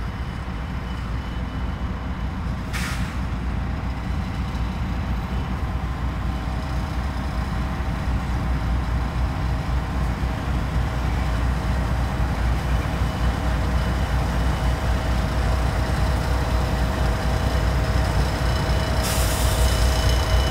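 BNSF diesel locomotive pushing a Jordan snow spreader slowly toward the listener, its low engine rumble steady and growing gradually louder. A short hiss of air comes about three seconds in, and another begins near the end.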